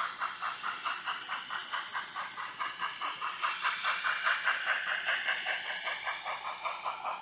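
N scale Kato Union Pacific 844 steam locomotive model running past, with an even beat of about five pulses a second and a faint whine that slowly rises in pitch. It is loudest in the middle as the train comes closest and eases off near the end.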